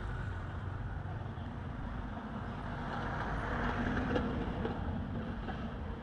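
Steady low rumble of road traffic, swelling a little near the middle.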